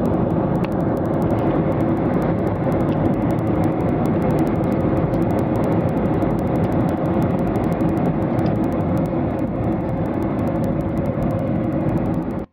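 Jet airliner cabin noise in flight: a steady rush of engine and airflow noise with a faint, even hum underneath.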